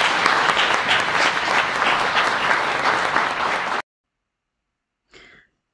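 Audience applauding, a dense patter of many hands clapping, which cuts off suddenly about four seconds in.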